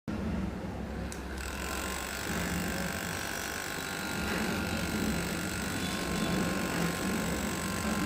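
Battery-powered mini DC motor of a homemade plastic-bottle fan running steadily, spinning a small plastic propeller with a constant whir.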